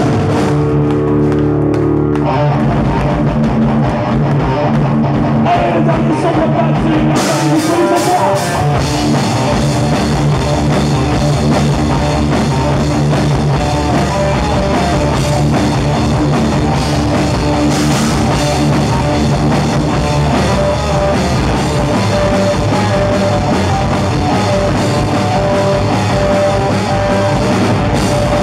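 Live heavy metal band playing loud electric guitars, bass and drum kit, an instrumental passage with no singing; the cymbals crash in about seven seconds in and the full band carries on.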